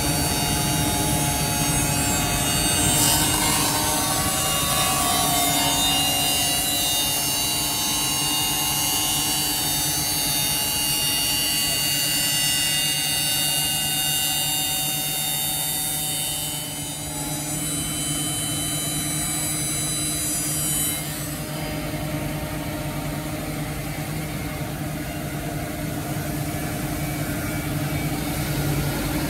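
Two-spindle CNC copy shaper running, its spinning cutters shaping wooden parts over a steady motor hum. The high cutting whine cuts off about 21 seconds in, leaving the lower machine hum.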